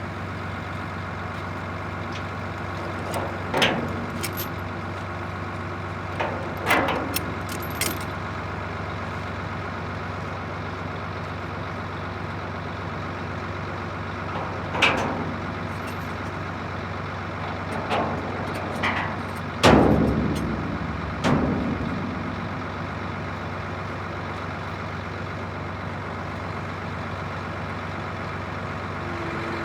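Truck engine idling steadily, with chains rattling and clanking in a handful of sharp, separate hits, the loudest about two-thirds of the way through.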